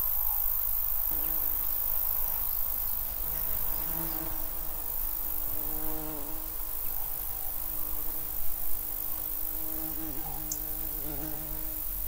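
A flying insect buzzing close by, starting about a second in, its hum wavering in pitch toward the end. Behind it is a steady high chirring of meadow crickets or bush crickets.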